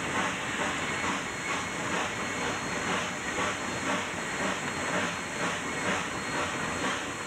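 K-36 narrow-gauge steam locomotive working hard on a heavy tonnage train, heard from inside its cab: a steady, rhythmic exhaust beat under a constant hiss of steam and running noise.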